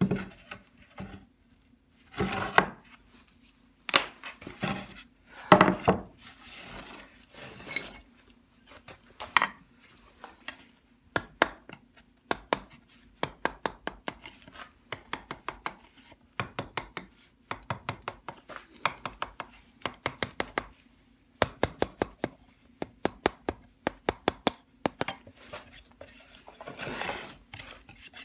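Hand chisel scraping and paring at a carved board. It starts with a few short scraping strokes, then runs into a long series of quick, sharp clicks as the blade chips at the lettering. Near the end come rubbing strokes of sanding.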